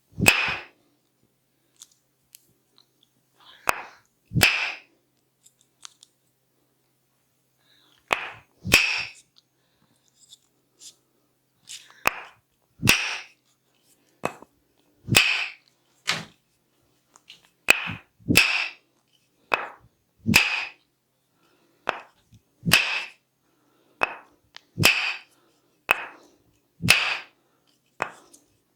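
Sharp percussive massage strikes, often in pairs of a light tap and a louder smack. They are sparse at first and come about once a second from about halfway.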